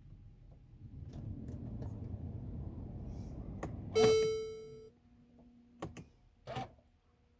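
Car cabin after the start button is pressed on a 2014 Mercedes C350: a low rushing whir lasts about four seconds, then a single loud dashboard warning chime rings and fades, followed by a faint steady hum and a few clicks. The engine does not start; the car is warning that the key fob battery is low.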